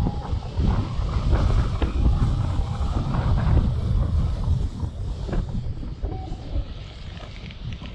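Airflow buffeting the camera microphone in paraglider flight at about 40–45 km/h: a rough, uneven rumble with hiss. A few faint short steady tones sound at the start, around two seconds in and near six seconds.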